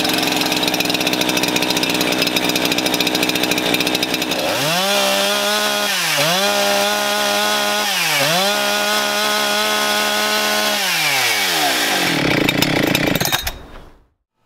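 Cutter's Edge 2171 two-stroke rescue chainsaw catching on a pull of the starter cord and running at high idle. About five seconds in it is given three full-throttle strokes, each revving up, holding and dropping briefly. It then runs down and is shut off near the end, the weekly run-up routine of high idle, full throttle and immediate shut-off.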